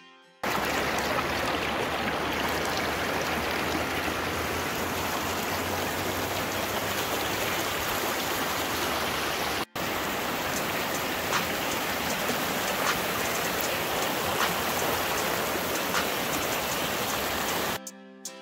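Steady rushing of a shallow creek flowing over rocks. It breaks off for an instant about halfway, where one take cuts to another.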